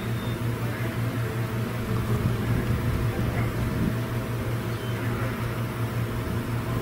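A steady low mechanical hum over a background hiss.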